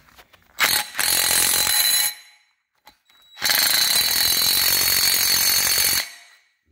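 Impact wrench run in two bursts on a bolt, the first about half a second in for a second and a half, the second from about three and a half seconds in for about two and a half seconds, with a steady high whine under the hammering.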